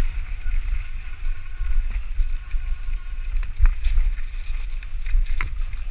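Mountain bike riding a dirt trail, with wind buffeting the microphone and a steady rush of tyre and trail noise. A few sharp knocks and rattles from the bike over bumps come in the second half.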